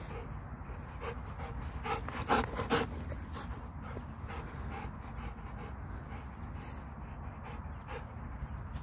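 Rottweiler-Labrador and American Bulldog cross dog panting hard with its mouth open, a run of quick breaths, two of them louder a little over two seconds in.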